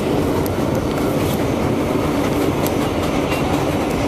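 R142A subway train running steadily at speed on elevated track, heard from inside the car: a continuous running noise with a few scattered clicks of the wheels over rail joints.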